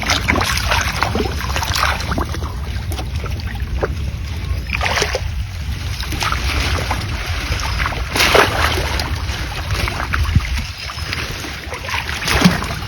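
Wind rumbling on the microphone beside water, with a few short splashes.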